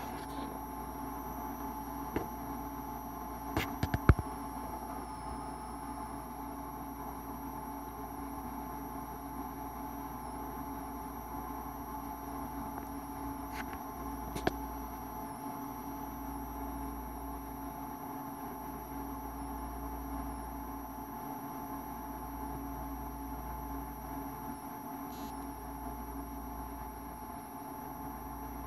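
Steady electrical hum with a few faint high steady tones above it. A handful of sharp clicks break in, about two seconds in, a cluster around four seconds (the loudest), and one near the middle.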